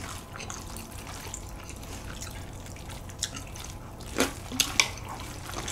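Wet chewing and slurping of noodles close to the microphone, with a few sharp wet mouth clicks a little after four seconds in.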